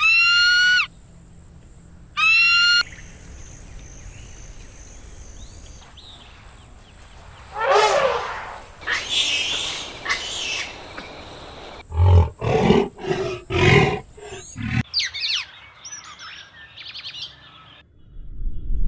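A run of different animal calls one after another: two short high rising calls, a falling cry, a quick series of short repeated calls, then chirping near the end.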